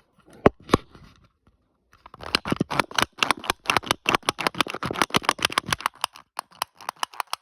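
A fidget toy being clicked by hand: two single sharp clicks, then about two seconds in a fast run of many clicks a second that thins out near the end.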